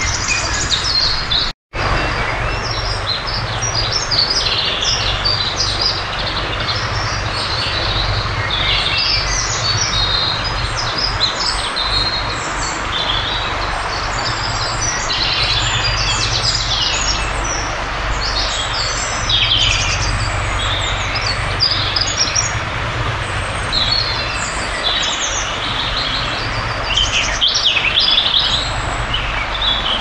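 A loud chorus of many woodland songbirds singing at once, with short overlapping song phrases one after another, over a steady rushing background. The sound drops out completely for an instant about two seconds in.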